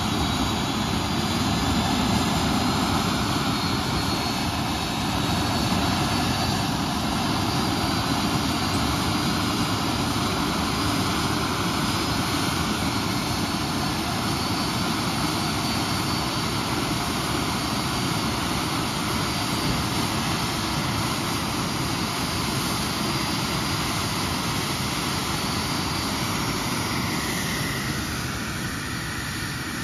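TS-11 Iskra jet trainer's single SO-3 turbojet running steadily with a whine over a loud rush during an engine test run, easing slightly near the end.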